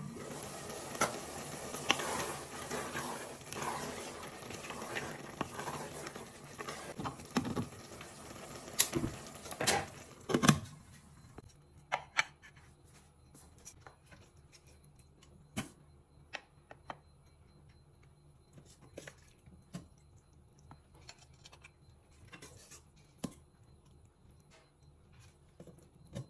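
Okra soup simmering in a covered pot, a dense crackling and bubbling with a few sharp clinks of the glass lid. About ten seconds in it cuts off, leaving only scattered light taps and clicks.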